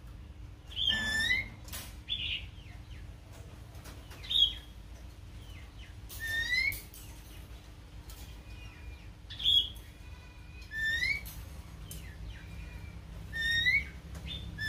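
Caged laughingthrush singing: loud, clear whistled phrases, each a quick upward-sweeping note, repeated about seven times a second or two apart. A faint steady hum lies underneath.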